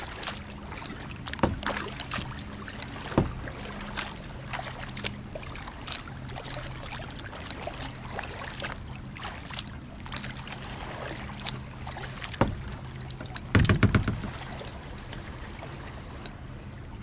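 Kayak paddling: the double-bladed paddle dips and splashes on alternate sides, with scattered knocks and water sloshing against the plastic hull. A faint low hum runs underneath. A brief loud clatter of knocks comes about three-quarters of the way through.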